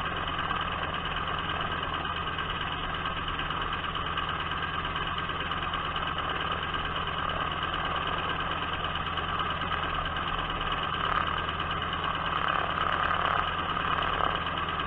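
Biplane's engine and propeller running steadily on the ground while the aircraft taxis, getting a little louder near the end.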